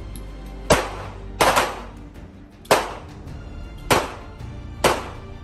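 Handgun firing six shots in a string, roughly one a second, with two in quick succession about a second and a half in.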